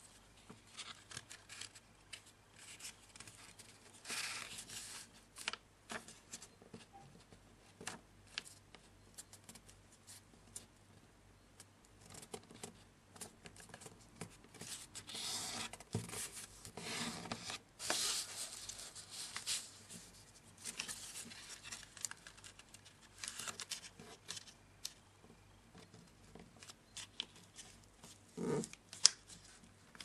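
Origami paper being folded by hand: the sheet rustles and slides on the board, and fingers run along and press down the creases in irregular bursts. A dull knock near the end.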